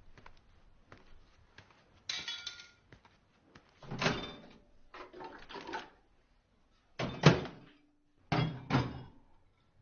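A run of household knocks and thuds in about six separate bursts, with a rustling hiss between the first ones. The loudest, sharpest thud comes about seven seconds in, followed by two more close together.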